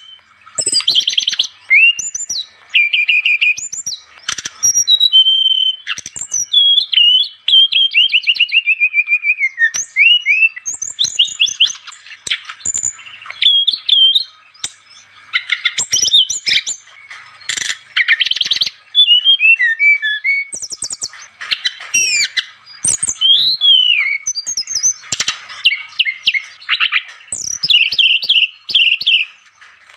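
Brown-chested jungle flycatcher (sikatan rimba dada coklat) singing energetically. It pours out quick, varied phrases of high whistles, slurred notes and trills, with short breaks between them.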